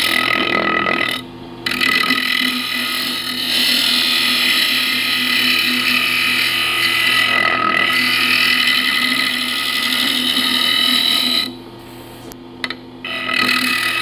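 Carbide scraper cutting an ash blank spinning on a wood lathe at about 2,000 RPM: a steady, high scraping hiss over the lathe's hum. The cut stops twice, briefly about a second in and for nearly two seconds near the end.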